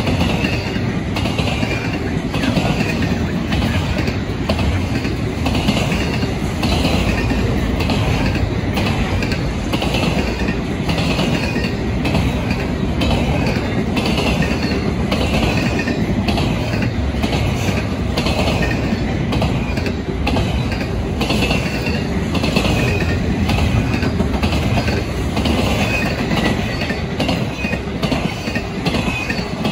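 Double-stack intermodal freight cars rolling past: a steady rumble with clickety-clack of the wheels over rail joints. Short high wheel squeals recur about every second and a half.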